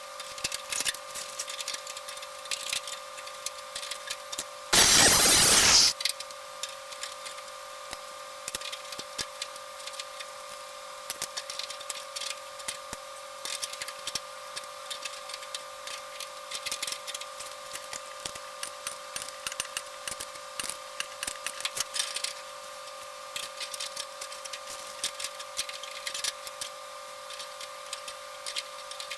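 Sheet-metal fabrication work: scattered small clicks and taps over a steady hum, with one loud hissing burst lasting about a second, about five seconds in.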